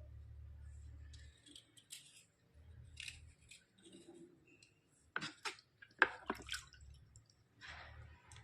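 White slate pencil being scraped: a series of short, irregular scratches and clicks, with a louder cluster of sharp strokes about five to six and a half seconds in.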